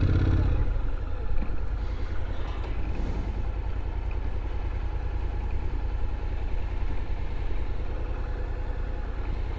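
Honda NC750X's parallel-twin engine running at low revs as the motorcycle rolls slowly: a steady, low, even pulsing.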